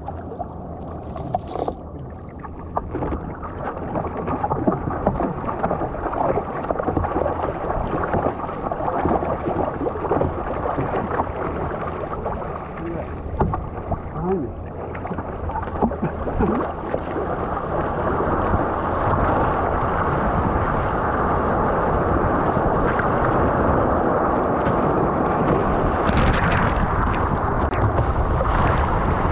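Water splashing and rushing against an Epic V7 surfski's hull under steady paddle strokes. About two-thirds of the way through the sound turns into a louder, steady rush of water and spray as the boat speeds up riding a wave.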